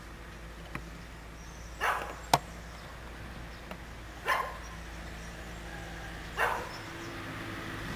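A dog barking three single barks, about two seconds apart, with one sharp click just after the first bark.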